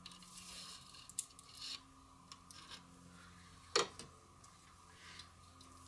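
Faint rubbing and small clicks as the glued halves of a Quad ESL63 electrostatic speaker panel are worked apart by hand, slightly sticky with old glue. One sharper click comes a little under four seconds in.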